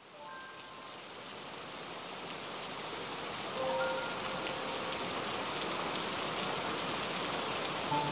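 Steady rain falling, fading in over the first few seconds and then holding steady. A few sparse notes of soft music sound over it.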